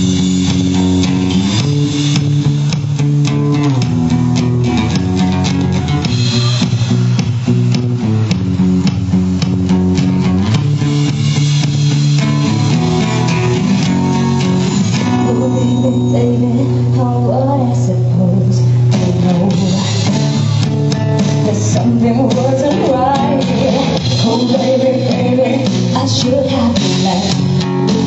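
Instrumental passage of a cover song played by a small band: guitar over steadily changing bass-guitar notes, with a winding lead melody in the second half.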